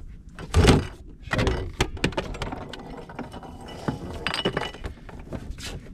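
Handling noise: an orange buoy fender and its three-strand rope being lifted and shifted about on a sailboat's cockpit seat, with a run of knocks, clatter and rope rustling. The loudest knock comes a little over half a second in.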